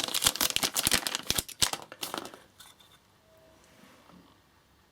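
Packaging rustling and crinkling as parts are handled and lifted out of the box. It stops a little over two seconds in and the rest is nearly quiet.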